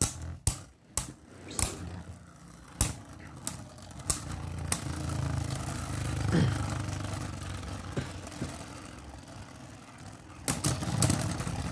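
Two Beyblade spinning tops, Perfect Phoenix and Glide Ragnaruk, battling in a plastic Beyblade stadium. In the first few seconds there are sharp clicks as they strike each other and the stadium wall, then a steady whirring as they spin on the floor, and a fresh run of rapid clicks near the end.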